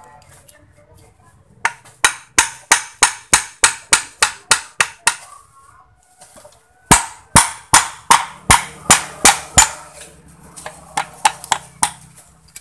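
Hammer knocking an electric motor's metal end cover into place on its housing: a run of about a dozen sharp strikes at roughly three a second, a short pause, about eight more, then a few lighter taps near the end.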